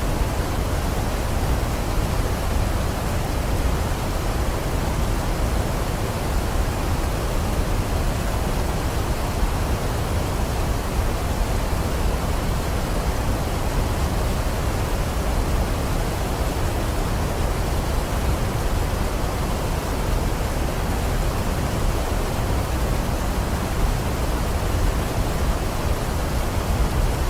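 Waterfall: water falling in a steady, unbroken rush, deep and full in the low end.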